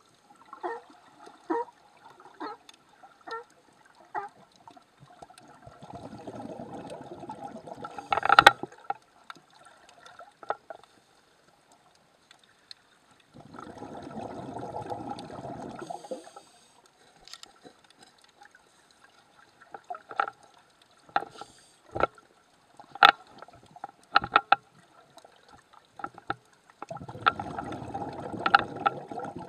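Underwater sound: a diver's exhaled bubbles gurgling in three bursts of a few seconds each. Between the bursts come sharp clicks and short calls from California sea lions.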